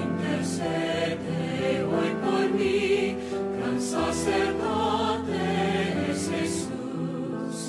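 Vocal group singing a slow Christian hymn in harmony, with held notes over an instrumental accompaniment.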